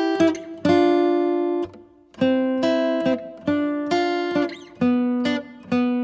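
Background music: an acoustic guitar playing a slow run of plucked chords, each ringing out and fading before the next.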